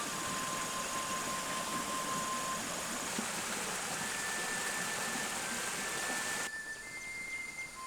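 Steady rushing noise of water, falling lighter about six and a half seconds in.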